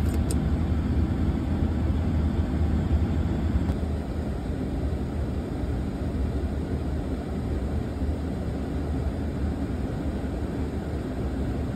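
Steady low rumble and rushing air on a Boeing 747-8F flight deck, from the APU running at full speed and the air-conditioning packs just switched on. It drops slightly in level after about four seconds. A couple of light switch clicks come right at the start as a pack switch is pressed.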